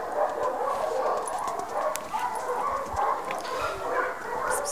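Dog whining and yipping almost without a break, in a run of high overlapping cries. Near the end a quick, even run of high clicks begins.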